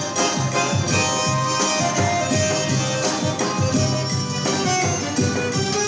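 Forró band playing an instrumental passage with no singing: a steady, driving beat under sustained melodic notes.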